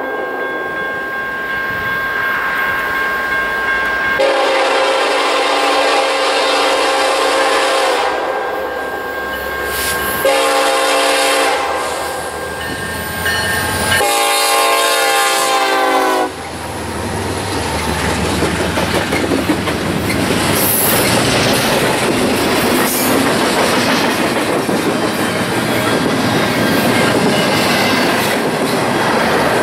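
Norfolk Southern SD70ACe diesel locomotive sounding its multi-chime air horn in a run of long blasts as it approaches, the last ending about sixteen seconds in. After that comes the steady rolling rumble and clickety-clack of the passing locomotives and double-stack intermodal cars on the rails.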